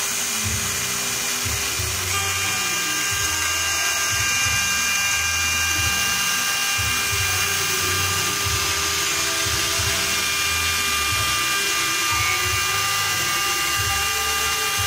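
CNC milling machine spindle running with an end mill cutting a metal plate: a steady high-pitched whine over a hiss of cutting. A set of high tones comes in more strongly about two seconds in.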